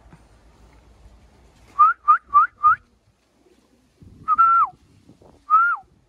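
A person whistling to call a racing pigeon down from the roof to land: four quick rising whistles, then two longer whistles that hold their pitch and drop at the end.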